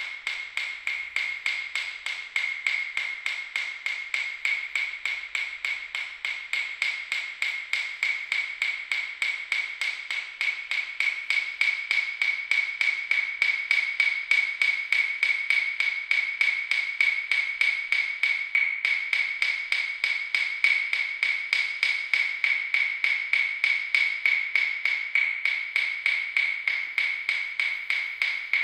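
Steady, even ticking, about three ticks a second, each tick with a bright ringing pitch. It grows a little louder about a third of the way through.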